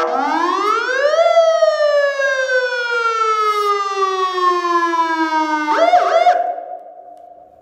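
400 W electronic motorcycle siren sounding a wail: the pitch climbs quickly for about a second, then falls slowly for about four seconds. Near the end it switches abruptly to a brief higher, wavering tone that fades away.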